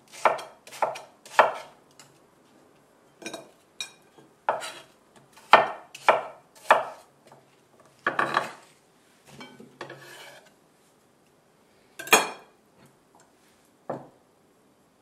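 Chef's knife chopping apple into cubes on a wooden cutting board: the blade knocks on the board, several strikes in quick succession at first, then spaced about a second apart. A softer, longer brushing sound comes a little past the middle.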